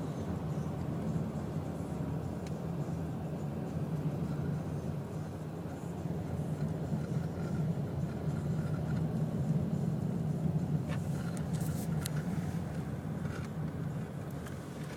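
A car driving on snowy roads, heard from inside the cabin: a steady low hum of engine and tyres, swelling a little in the middle, with a few light clicks near the end.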